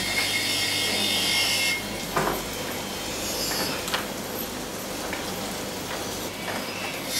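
Gem-faceting machine grinding the crown of a ruby on its spinning lap: a high grinding hiss that stops about two seconds in, leaving a quieter steady running noise with a couple of light clicks.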